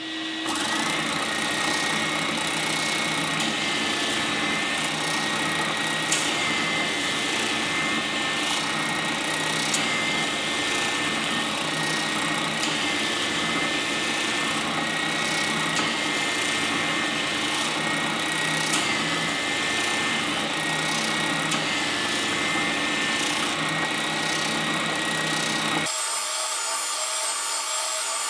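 Triton oscillating spindle sander running steadily with a wavering whine while an end-grain oak block is pushed along its sanding drum and planed flat against the jig's fences. Near the end the low part of the sound drops away and a higher whine comes in.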